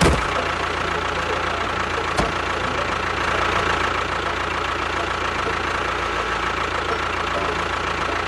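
An engine running steadily, starting abruptly with a click, with one short knock about two seconds in.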